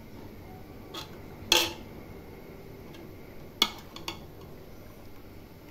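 Steel ladle clinking against the side of a steel cooking pot of curry as it is stirred: a few sharp ringing knocks, the loudest about a second and a half in and again about three and a half seconds in.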